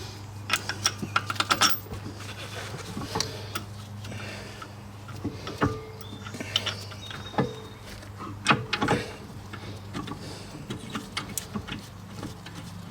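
Scattered metallic clicks and knocks of brake parts being handled and a bolt being started by hand at the front brake caliper, with a quick run of clicks about half a second in. A steady low hum runs underneath.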